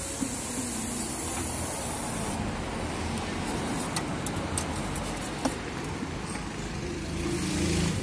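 Steady low rumble, with a few light plastic clicks around the middle as the oil filler cap is unscrewed from the Alto K10's engine cover.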